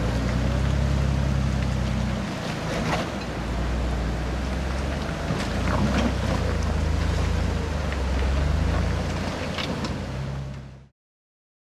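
Lifted Jeep Wrangler JK's engine running at low, steady revs, easing off and picking up again a few times, while it fords a rocky, fast-flowing creek, with water rushing and splashing around it and a few sharp knocks. The sound cuts off suddenly near the end.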